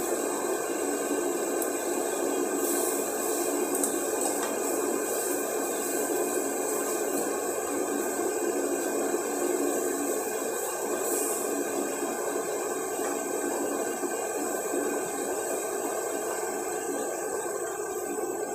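Steady rushing hum of a kitchen range-hood fan over a lit gas hob while a pot of noodles cooks, with a few faint clinks of a utensil stirring in the pot.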